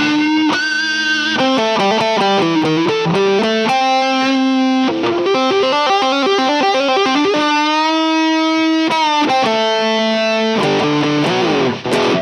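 Epiphone SG 310 electric guitar with EMG 81/85 active pickups playing a lead riff through an amp-simulator chain. Quick runs of single notes lead to a long held note with vibrato about eight seconds in, then falling notes, and the guitar cuts off suddenly at the end.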